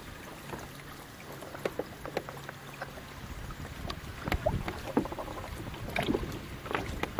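Water slapping and splashing against the hull of a small sailboat under way in light air. Short splashes and knocks come more often in the second half.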